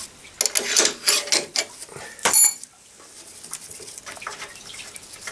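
Steel hand tools and loose metal parts clinking and clanking, with one short bright metallic ring about two seconds in, then softer handling noises.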